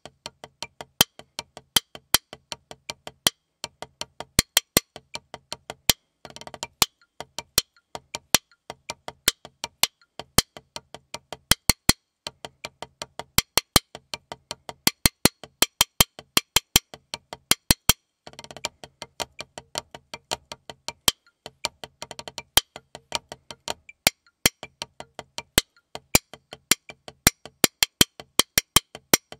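Wooden drumsticks playing a rudimental snare-drum solo on a rubber practice pad: dry, clicking strokes in a steady rhythm with louder accents. Two short rolls come about six and about eighteen seconds in.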